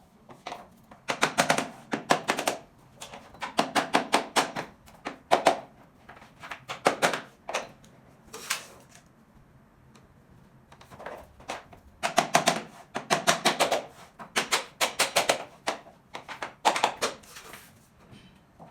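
Bursts of rapid, sharp tapping, several quick strikes at a time with short pauses between: SPC stone-plastic floor planks being knocked together so their click joints lock.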